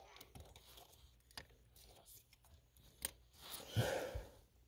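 Faint clicks and rubbing of a plastic wiring connector and a blower motor resistor being handled and fitted together by hand. A sharper click comes about three seconds in, then a louder rustling scrape.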